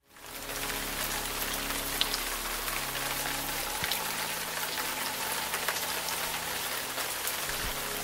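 Steady rain falling: an even hiss with scattered faint drop ticks, fading in just after the start.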